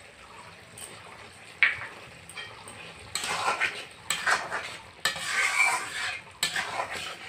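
A spatula stirring and scraping a thick egg-and-potato curry around an aluminium kadai over the fire, in bouts starting about three seconds in, with a light sizzle. One sharp click comes about one and a half seconds in.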